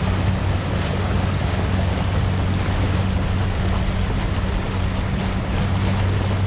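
A steady low motor drone under a constant rushing noise of wind and water.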